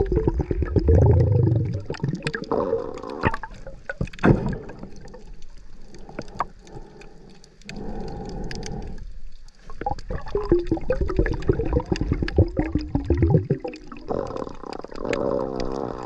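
Water gurgling and sloshing around a snorkeller's camera at or below the surface, with many irregular small pops and clicks.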